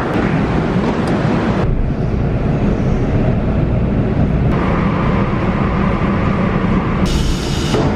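São Paulo metro train in motion: a steady low rumble and rush of running noise. A hum joins it about halfway through, and a burst of hiss comes near the end.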